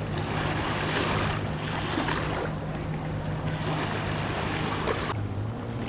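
A motor's steady low hum under rushing water and wind noise that swells and fades every second or so.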